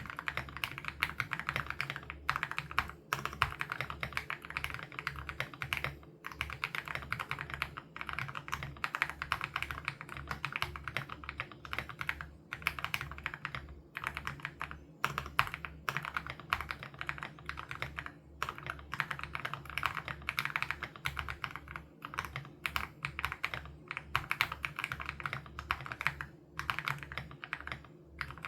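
Continuous typing on an Aula F87 Pro mechanical keyboard with HMX Sarcophagus switches: rapid, dense keystroke clacks in runs, broken by short pauses a few times.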